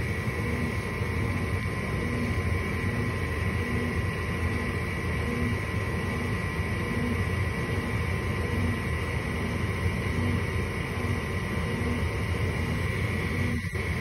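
Gas furnace draft inducer motor running steadily: a low hum with a steady high whine and a faint throb about once a second.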